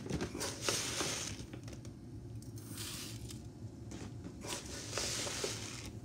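Dry basmati rice grains rustling into a plastic colander in about three short bursts.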